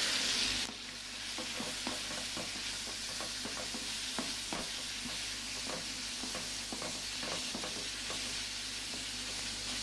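Meat frying in oil in a hot pan, sizzling. The sizzle drops suddenly a little under a second in to a quieter, steady hiss with many small clicks, and swells again near the end.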